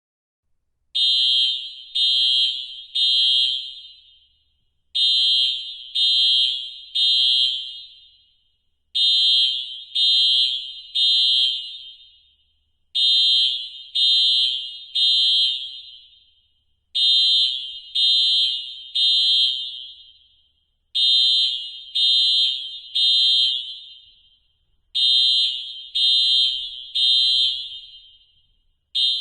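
Industrial fire alarm sounding the three-beep evacuation pattern: high beeps in groups of three, about one a second, with a group every four seconds. Each group trails off in an echo. Seven full groups sound, and the first beep of another cuts in at the very end.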